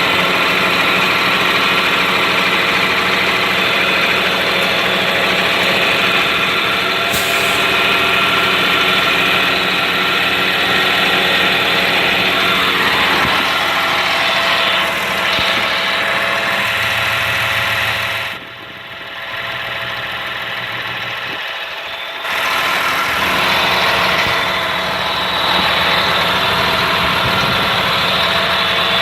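Caterpillar C7 7.2-litre inline-six diesel in a Blue Bird Vision bus idling steadily and smoothly. About two-thirds through, the sound drops and goes dull for a few seconds, then returns.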